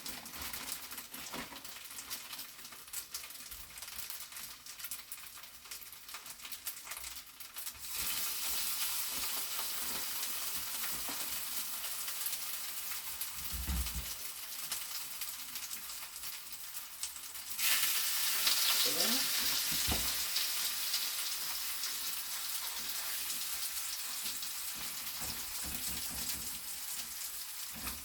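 Slices of boiled dumpling frying in hot oil, a steady sizzle that grows louder about eight seconds in and jumps again a little past halfway. A couple of dull knocks sound in between.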